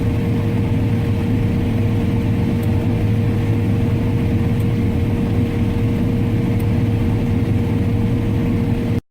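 Diesel engine of farm harvest machinery running steadily, a low drone with a steady high whine over it; the sound cuts off abruptly near the end.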